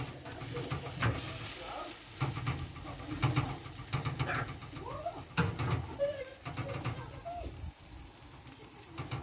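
A pigeon cooing in the background, with a few sharp metallic clicks of tongs against the grill grate, the loudest about five and a half seconds in, over a low rumble.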